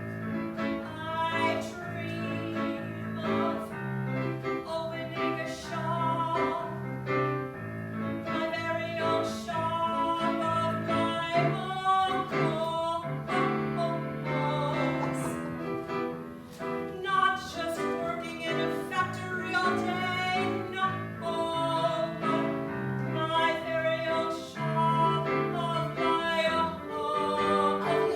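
A woman singing a slow song with wavering held notes over piano accompaniment.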